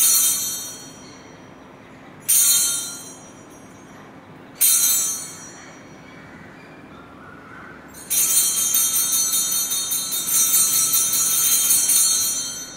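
Altar bells rung at the elevation of the chalice during the consecration: three separate high, ringing strokes about two seconds apart, each dying away, then a continuous jangling ring of about four seconds near the end.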